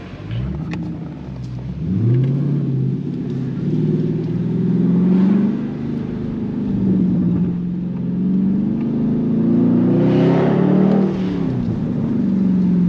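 2022 Dodge Charger Scat Pack's 392 (6.4-litre) Hemi V8 pulling under acceleration. Its note climbs and drops back several times and is loudest about ten seconds in, then falls away to a steadier cruise.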